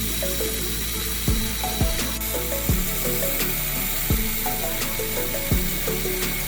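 Background music with a kick-drum beat and short stepping, falling melodic figures, over a steady high whine.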